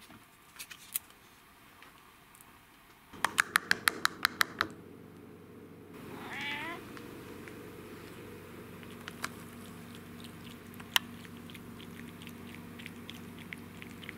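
A domestic cat meows once, about six seconds in. A quick run of about nine sharp clicks comes a couple of seconds before it. Faint ticks follow while the cat eats wet food from a bowl.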